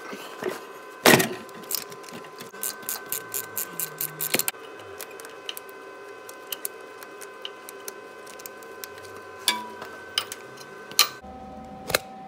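Ratchet wrench clicking in short runs, about five clicks a second, as a socket is worked on an exhaust manifold stud in the cylinder head. There is a sharp metal knock about a second in, and a few single clicks near the end, over a steady faint hum.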